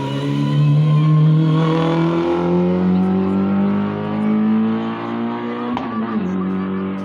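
Rally car engine accelerating under load, its pitch climbing slowly and steadily, then dropping briefly at a gear change about six seconds in before it pulls on.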